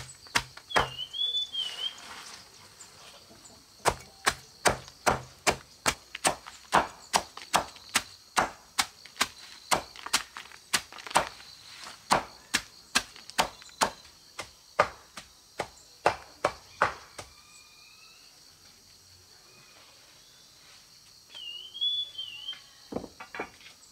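A knife chopping sweet potato vines on a wooden board, in a steady run of sharp strokes at about two a second. The chopping breaks off for a few seconds near the start and stops about 17 seconds in.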